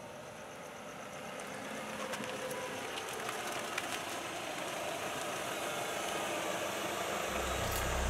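A car driving slowly towards the listener, its engine and tyres growing steadily louder as it nears. Near the end a deep low drone comes in under it.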